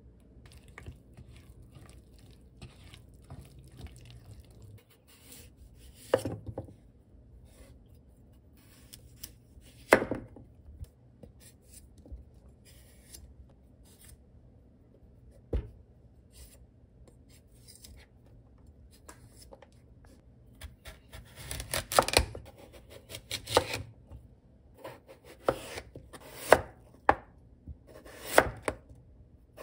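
Kitchen knife cutting a Korean radish on a plastic cutting board: a few scattered knocks of the blade striking the board, then a steady run of chops near the end as the radish is sliced.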